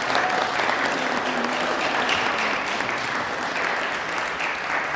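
Audience applauding, a dense, steady clatter of clapping that tapers slightly near the end.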